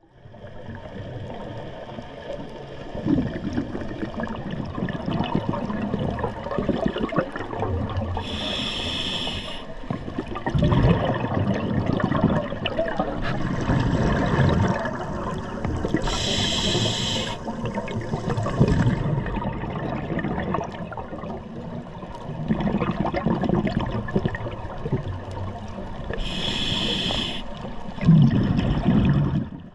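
Scuba diver breathing through a regulator underwater: three short hissing inhalations, roughly every nine seconds, with long stretches of bubbling exhaled air in between.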